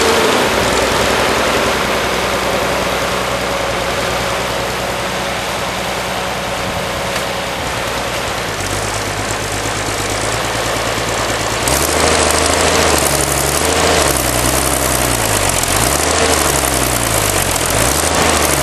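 Allis-Chalmers WD-45 Diesel tractor's six-cylinder diesel engine running as the tractor is driven slowly. About twelve seconds in it gets louder, and its pitch then rises and falls several times as the engine speed changes.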